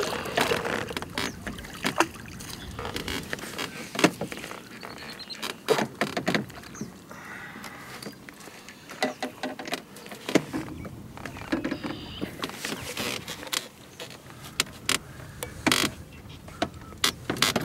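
Irregular knocks, clicks and handling noises in a small fishing boat, scattered unevenly with sharp knocks every second or two.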